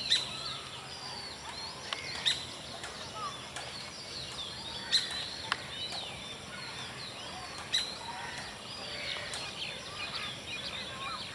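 Many small birds chirping and twittering without a break, with several sharp, loud chirps standing out; only a faint, steady background hum underneath.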